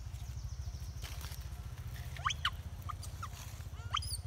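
Baby macaques giving several short, high squeaks in the second half, over a steady low rumble.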